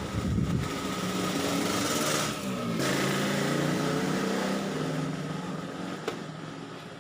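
A small engine running with a steady drone, growing louder for a couple of seconds in the middle and fading toward the end.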